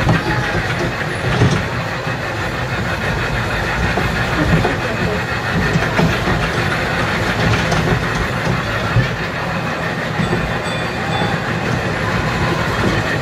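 Kiddie ride train cars running along their track: a steady rumble with a few short knocks.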